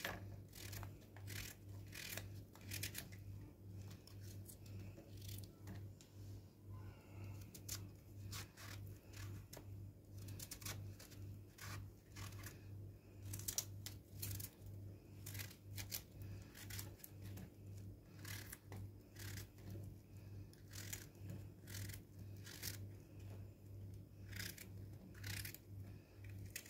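Kitchen knife cutting chunks off a raw zucchini held in the hand: a long run of short crisp cuts, roughly one or two a second. A steady low hum sits underneath.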